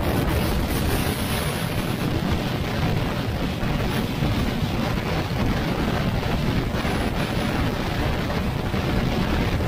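Steady rush of wind buffeting the microphone on a moving Yamaha NMAX scooter, with the scooter's running noise blended underneath.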